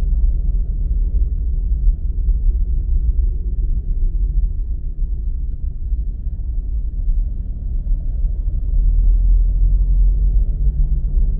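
Steady low rumble of a car on the move, road and engine noise, swelling slightly near the end.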